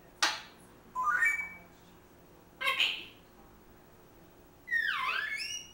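African grey parrot vocalizing in short separate calls: a sharp click, a brief rising call, a harsh burst, and near the end a longer whistle that swoops down and back up.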